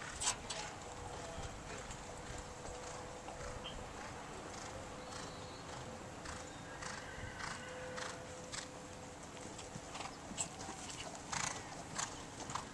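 Hoofbeats of a horse cantering on a sand arena between and over show jumps, with a few sharp knocks standing out, the loudest just after the start and twice near the end.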